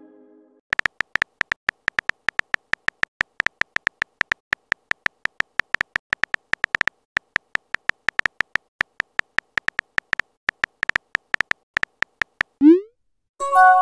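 Simulated phone keyboard clicks from a texting-story chat app: short, even taps at several a second as a message is typed out. Near the end a short rising swoosh sounds as the message is sent, and a chime begins.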